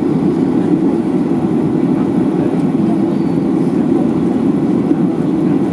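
Steady low cabin rumble inside a Boeing 737-800 on the ground, its CFM56-7B jet engines running at low taxi power.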